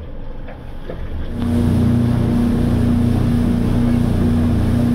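A glass-bottom tour boat's engine running steadily, a constant hum with one held tone, which comes in abruptly about a second in.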